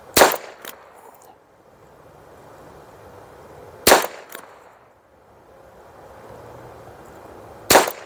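Three shots from a Ruger Wrangler Bird's Head .22 LR single-action revolver, about four seconds apart, each followed by a fainter second crack about half a second later.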